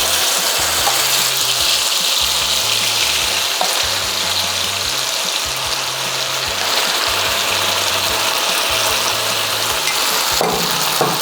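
Chili seasoning paste sizzling steadily in hot lard in a frying pan.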